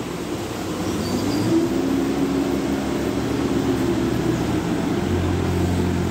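Forklift engine running under load, its pitch rising as it revs up about a second in, then holding steady.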